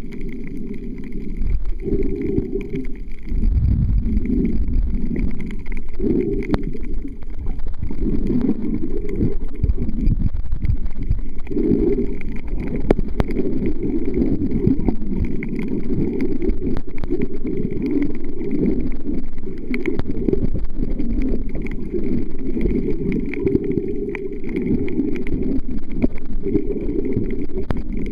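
Muffled, surging underwater rumble and water movement, picked up by a camera submerged in the sea.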